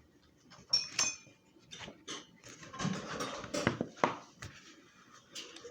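A few scattered light clicks and knocks, one with a short ringing clink about a second in, like dishes or cutlery being handled.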